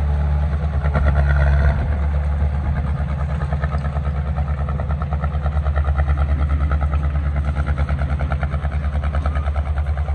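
Heavy diesel engine running, loud and steady at first, then settling about two seconds in into a rapid, even throb.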